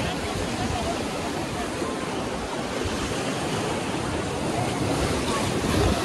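Steady rush of river water, with wind buffeting the microphone.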